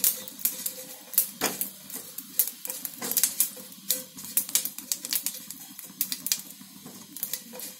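Mustard seeds and curry leaves crackling and popping in a little hot oil in a nonstick pan as they fry crisp, with irregular sharp pops while a silicone spatula stirs them. A faint steady hum runs underneath.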